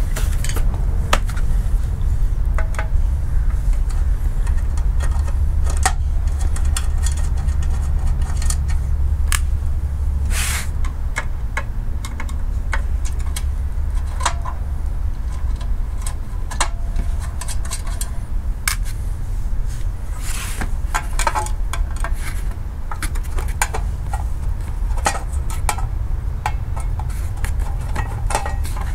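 Scattered light metallic clicks and clinks of a hand tool working on the bolts of a short-shifter box, with a few sharper knocks. Under them runs a steady low rumble, heavier in the first half.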